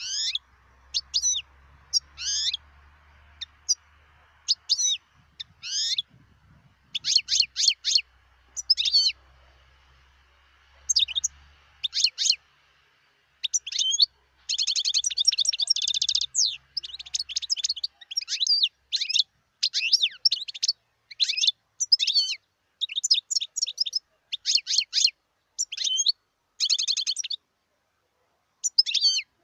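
European goldfinch singing: short twittering phrases and fast trills with brief pauses between them, with a longer trill about halfway through.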